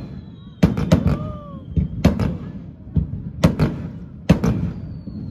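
Aerial fireworks bursting in a quick string of sharp bangs, clustered about a second in, around two seconds, and again from three and a half to four and a half seconds.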